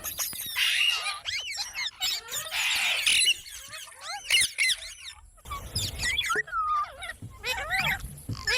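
A pet rose-ringed parakeet chattering: a quick run of short, shrill chirps and squawks that slide up and down in pitch.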